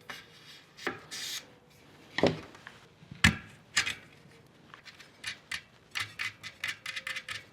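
Tubeless presta valve being worked into a carbon wheel's rim: scattered knocks and rubbing, then a run of quick light clicks, about three a second, over the last couple of seconds.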